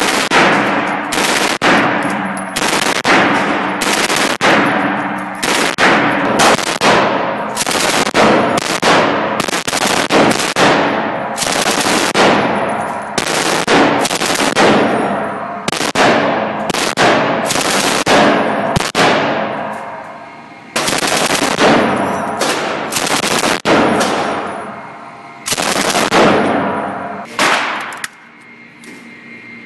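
Automatic firearms firing repeated short bursts, with loud reports and a hard echo off the walls of an indoor range. The firing stops briefly about two-thirds of the way in and dies away near the end.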